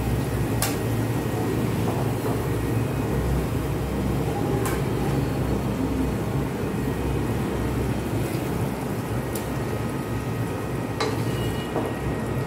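A spatula knocking against a pot and plate while food is served, giving a few short sharp clicks over a steady low hum.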